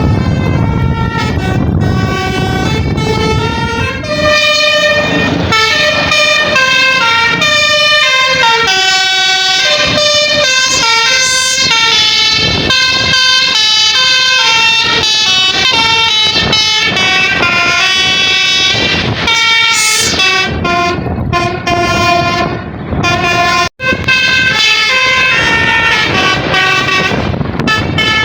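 Tour bus's telolet basuri air horn playing a melody through its electronic horn module: several horn pitches sound together and step from note to note, with a low rumble under the first few seconds and a split-second break near the end.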